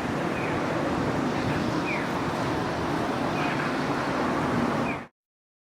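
Steady street noise of traffic and people at a busy road intersection. A short falling electronic chirp repeats about every second and a half, like a pedestrian crossing signal. The sound cuts off abruptly about five seconds in.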